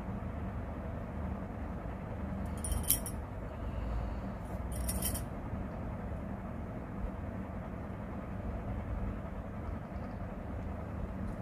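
Steady low background hum, with two short light clinks about three and five seconds in.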